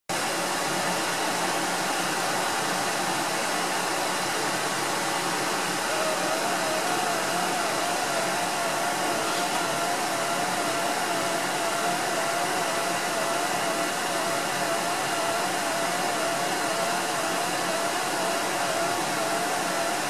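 Microwave plasma jet running at 250 W: a steady rushing hiss of gas and plasma. About six seconds in, a thin tone joins it and wavers slightly in pitch.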